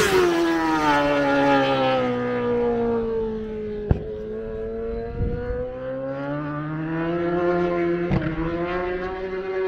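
Honda Fireblade superbike's inline-four engine running on track, its note falling in pitch over the first few seconds, then climbing slowly again. Two brief sharp cracks, about four seconds in and near the end.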